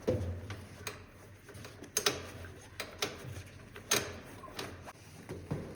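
Sharp metallic clicks and knocks from rescue gear being handled: carabiners and prusik cords being adjusted on a Stokes litter. A few single clicks, one at the start and then roughly a second apart from about two seconds in.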